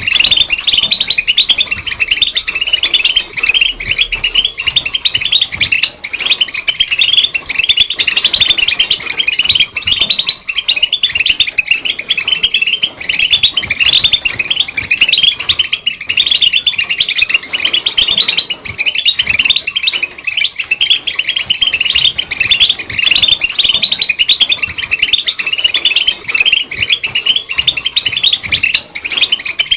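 European goldfinch singing: a fast, unbroken run of twittering chirps and trills.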